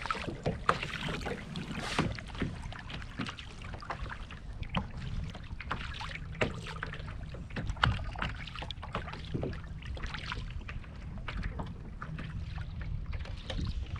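Wind buffeting the microphone, with small waves slapping against a drifting kayak hull in scattered short splashes and knocks.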